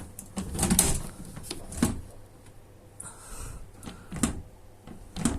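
About four sharp clicks and knocks from the parts of an Einhell table saw's blade adjustment mechanism being pushed and moved by hand. The loudest comes about a second in; the saw's motor is not running.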